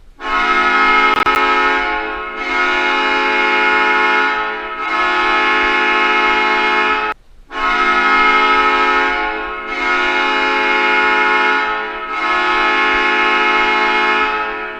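Hockey goal horn sounding in six long blasts of about two and a half seconds each, the sound dipping between blasts without stopping, with a short break after the third blast about seven seconds in.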